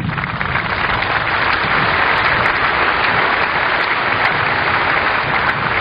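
Crowd applauding: a dense, even clapping that swells over the first couple of seconds and then holds steady.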